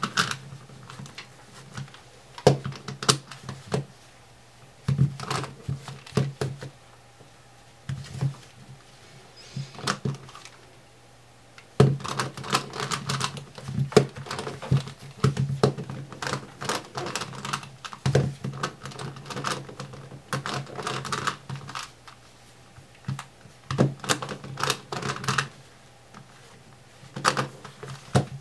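Plastic clicking and clacking of a Rex Cube's corners being turned quickly by hand, coming in rapid flurries of clicks with brief pauses between them.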